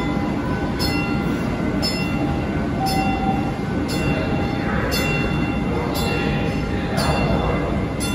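MBTA Type 9 light-rail train standing at the platform with its doors open: its equipment hums and rumbles steadily, and a short electronic beep repeats about once a second. A hiss swells for a few seconds partway through.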